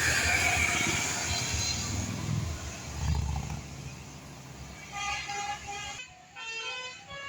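A bus passing and fading away, its engine rumbling low around three seconds in. Short melodic notes of a multi-tone telolet bus horn start about five seconds in.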